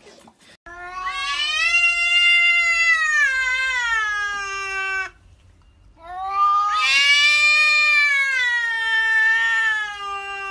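A domestic cat yowling: two long, drawn-out calls of about four seconds each, with a short pause between them, each sliding down in pitch toward its end.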